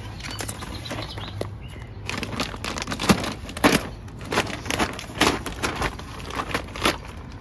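Potting soil being handled and dropped into a planting hole: a run of irregular rustles and soft thumps that starts about two seconds in.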